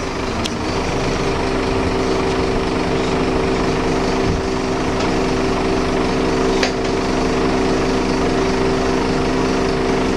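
A small engine running steadily at a constant speed, its even hum settling in about a second in, with a couple of faint clicks over it.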